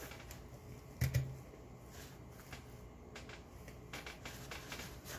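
Hands handling artificial flower stems and wispy greenery picks, soft crackly rustling, with one sharp clack and thump about a second in that is the loudest sound.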